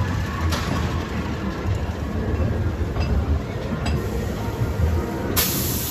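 Ghost train dark-ride car rumbling steadily along its track, with a few light clicks. A sudden loud hiss starts near the end.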